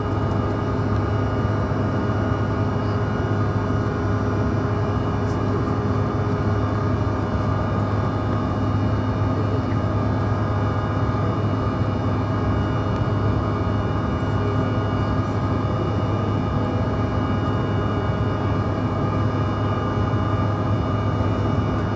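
Cabin noise of a Bombardier CRJ1000 climbing out after takeoff: its two rear-mounted General Electric CF34 turbofans give a steady hum with several constant tones over an even hiss of air.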